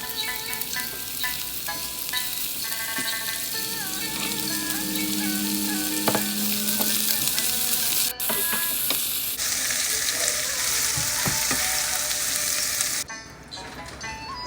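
Marinated shrimp sizzling and frying in hot oil in a pan, a steady hiss that grows louder partway through and cuts off abruptly near the end. Background music plays underneath.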